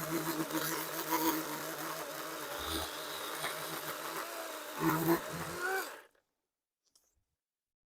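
DeWalt electric chainsaw running with a steady motor whine as it cuts into a Bradford pear trunk. It gets louder briefly about five seconds in, then cuts off abruptly into dead silence about six seconds in.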